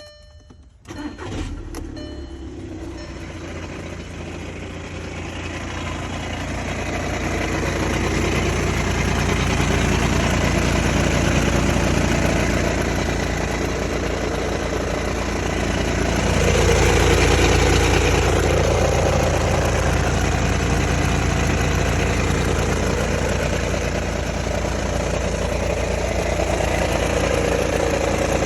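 2013 Volkswagen TDI's four-cylinder turbodiesel engine starting about a second in and then running, the noise building over the next several seconds and staying steady, with the unexplained weird noises the owner is recording.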